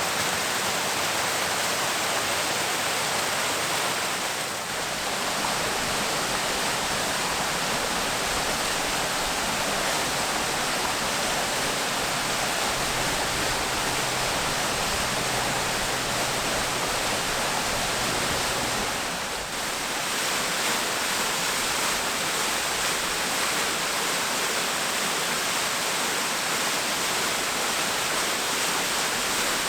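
Water running steadily down a waterfall and creek, an even, unbroken rush that dips slightly twice, about four seconds in and again near twenty seconds.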